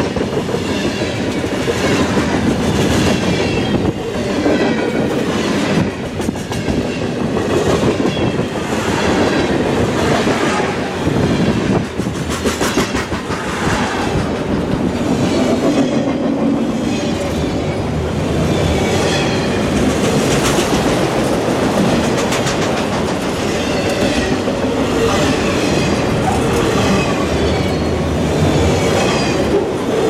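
Freight train cars rolling past close by, tank cars and then tall autorack cars, their steel wheels clicking and clattering on the rails in an uneven rhythm over a steady rolling rumble.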